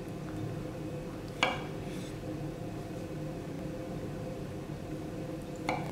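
Chef's knife cutting a boiled carrot on a wooden cutting board: two sharp knocks of the blade on the board, about a second and a half in and again near the end.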